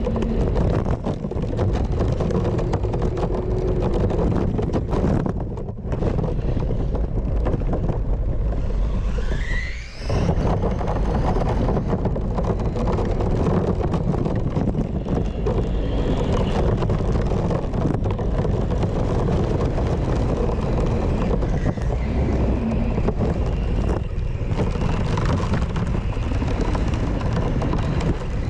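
Onboard sound of a radio-controlled rally car driving fast over dirt: a steady, dense rumble of the car's drive and tyres with wind on the camera microphone. It drops away briefly twice, and a short rising whine comes just before the second drop.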